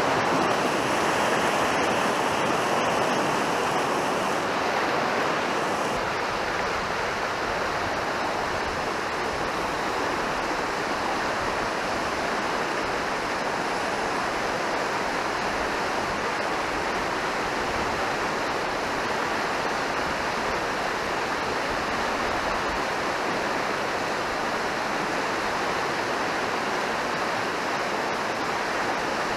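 Fast mountain stream rushing over rocks in whitewater: a steady, even noise of running water, a little louder in the first few seconds.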